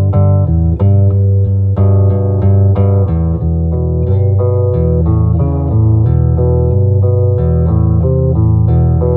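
Gibson Melody Maker electric guitar played through an Acoustic Control Corp 260 solid-state amp head into 2x12 cabinets: a continuous run of notes with a dark, bass-heavy tone. The amp is dialled in for the manual's bass-and-organ setting, with the guitar's tone knob turned to zero.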